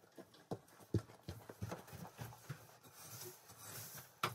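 Irregular footsteps and light knocks on a straw-covered coop floor as a person walks in carrying a rake, with a soft rustle of straw and one sharp click near the end.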